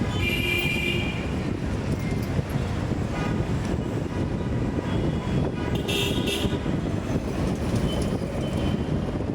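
Steady road traffic noise with vehicle horns honking several times, short pitched toots at the start, in the middle and near the end.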